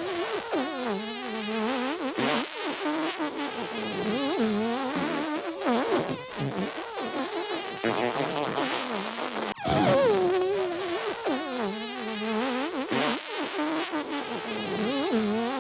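Comic fart noises: buzzy, wobbling pitched sounds following one another without a break. A sharp click about ten seconds in, after which the same sequence starts over.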